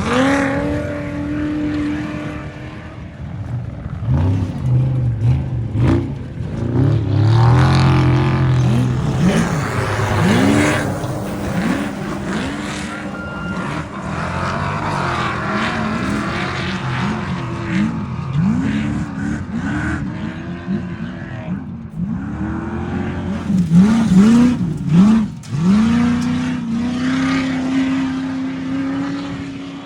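Off-road race vehicle engines revving hard, their pitch climbing and dropping over and over as they accelerate and back off. The engine note is steadier near the start and again near the end.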